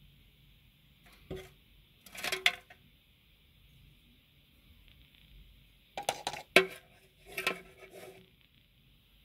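Sharp taps and scrapes on a thin clear plastic tray, coming in four or five short clattering clusters, the loudest about two and a half and six and a half seconds in.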